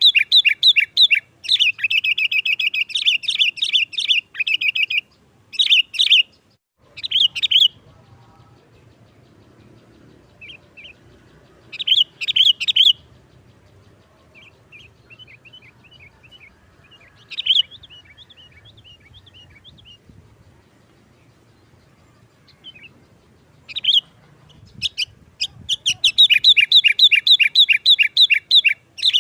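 Sooty-headed bulbul singing: fast rattling runs of sharp, high chirps in loud bursts, with softer scattered notes in the gaps between them.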